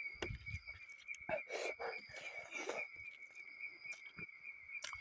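Close-up chewing and mouth smacks of a man eating rice and curry by hand, in short bursts with clicks. A steady high-pitched pulsing trill runs under it throughout.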